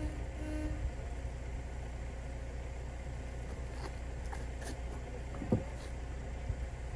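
Steady low engine hum, with a few faint clicks and one short thump about five and a half seconds in.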